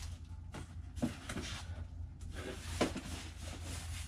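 Cardboard box being handled as its lid flap is opened: several short scrapes and knocks of cardboard, the loudest about a second in and near the end.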